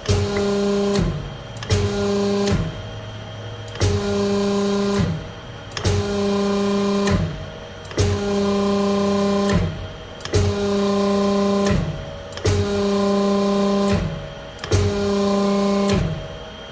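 Electric hydraulic pump of a hose crimper running in repeated on-off runs of about one to two seconds, each starting with a click, as it presses the crimping dies into a thick-walled 76 mm steel pipe up toward its 300 bar limit.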